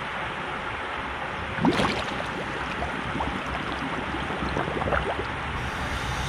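Water sloshing and lapping around a camera held at the waterline, with one sharp splash about two seconds in and small trickles and drips, as a diver rises up out of shallow water.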